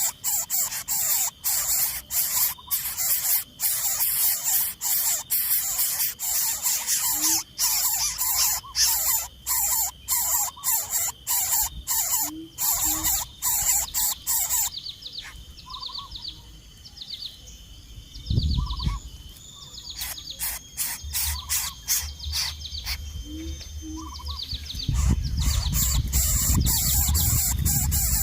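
Birds chirping in quick, repeated high notes, over a dense rapid clicking for the first half.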